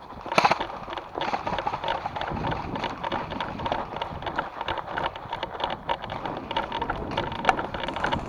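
Running footsteps with gear rattling and clothing rustling, many irregular short clicks and crunches, with a sharper knock about half a second in and wind buffeting the microphone.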